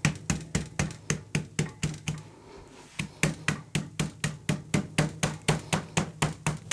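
Back of a kitchen knife rapidly striking a beef entrecote to tenderize it, about four to five knocks a second, with a short break about two seconds in.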